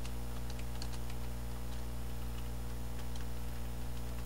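Faint, irregular clicks of computer keyboard keys being typed, over a steady electrical mains hum.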